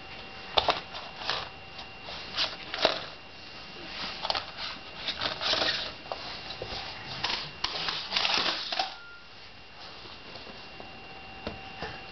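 Irregular small knocks and rustling as a baby moves about and crawls on a laminate floor, hands patting the floor and clothes rustling, settling down after about nine seconds.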